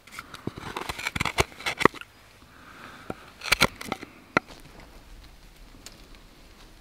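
Hand gouge cutting and scraping shavings out of a wooden bowl blank: a quick run of short, sharp cuts over the first two seconds, then a few more strokes a little later.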